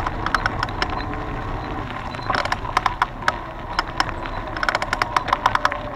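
Bicycle riding over a gravel track: a steady low rumble of tyres rolling on loose stones, with irregular clicks and rattles from gravel and the bike, bunched about two seconds in and again near the end.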